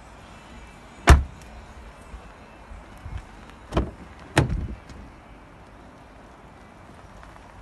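Car doors of a Mercedes-Benz E-Class saloon being handled. A door shuts with a sharp thump about a second in, the loudest sound, then two more sharp knocks follow close together a few seconds later.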